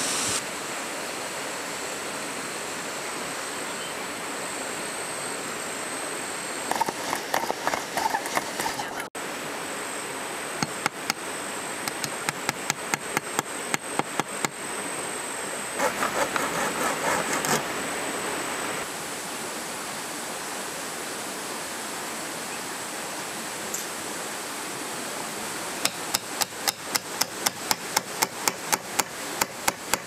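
Hand-tool work on bamboo: runs of sharp, evenly spaced taps, about two a second in the middle and faster near the end, with a short scraping burst partway through, over a steady hiss.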